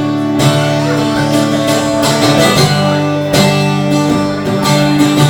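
Guitar strumming chords in a song's instrumental intro, with no singing yet.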